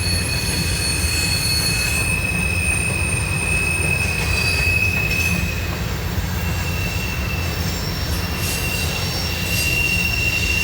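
Loaded CSX freight cars rolling past close by with a steady low rumble, their wheels squealing in a high, held tone that breaks briefly and comes back slightly higher about six seconds in.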